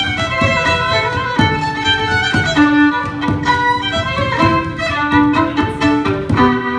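Fiddle playing a quick tune over a steady, regular low beat, settling onto a long held note near the end.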